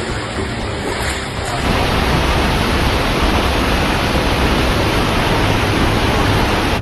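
Floodwater rushing: a dense, steady wash of noise that grows louder a little under two seconds in and stops abruptly at the end.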